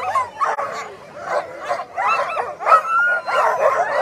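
Many sled dogs barking and yipping together in a dense, overlapping chorus, excited and eager to run at a race start.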